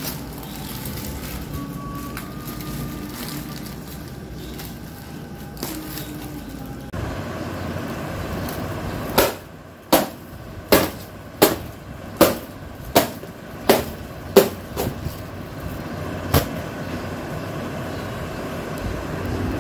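A run of about ten sharp knocks, roughly three-quarters of a second apart, over a steady background noise, with one more knock a little later.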